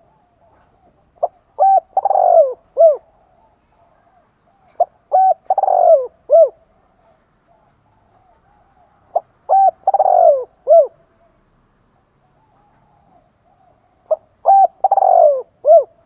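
Spotted dove cooing: four song phrases about four seconds apart, each a couple of short coos, then a long note that falls in pitch, then a short closing coo. Faint soft cooing runs between the phrases.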